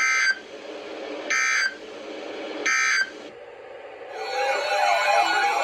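EAS end-of-message data tones on a weather radio broadcast: three short, harsh digital bursts about a second apart, marking the end of the warning. About four seconds in, a warbling electronic sound with wavering pitch begins.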